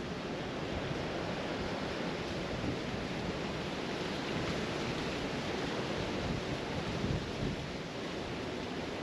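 Steady wind on the microphone: an even rushing noise, strongest low down, with no distinct events.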